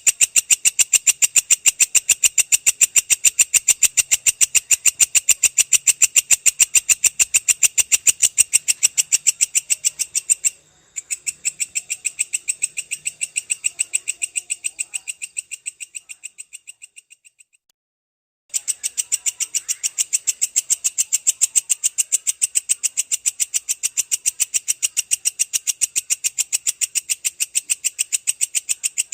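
Belalang kecek katydid calling: a long, rapid train of evenly spaced high, sharp pulses. It breaks briefly about ten seconds in, fades away and stops for about a second near the middle, then starts again at full strength.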